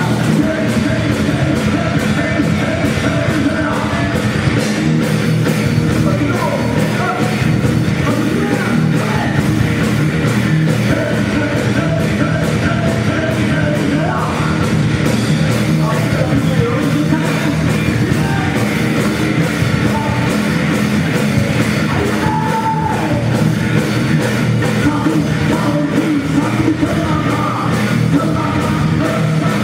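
Rock band playing live at a steady, loud level: electric guitar, bass and drums, with a singer's voice over them.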